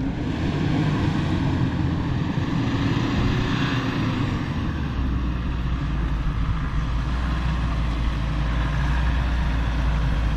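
Nissan Pathfinder R51 SUV's engine running steadily as it crawls through a muddy track and comes closer.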